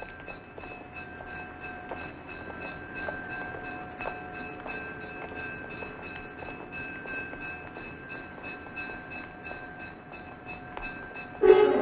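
Railroad crossing bell ringing steadily, about three strikes a second, with rail-yard background. Near the end, loud film-score music cuts in abruptly.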